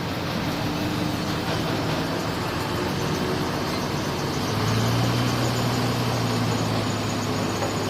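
Heavy diesel engine of earthmoving machinery running steadily under load with mechanical clatter; about halfway through the engine note grows louder and stronger.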